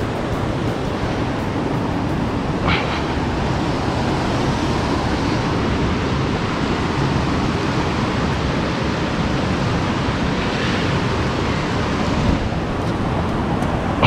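Steady rush of river water flowing over rocks. A brief splash-like knock comes about three seconds in and a louder one right at the end as the wader steps and climbs.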